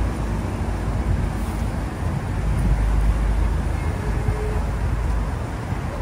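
Steady road traffic on a busy city street, a continuous noise dominated by a deep low rumble.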